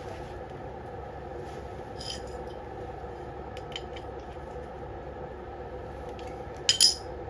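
Small metal clicks and a short, louder clatter near the end: hand tools and small carburetor parts being handled on a workbench while the carburetor is taken apart. A steady hum runs in the background.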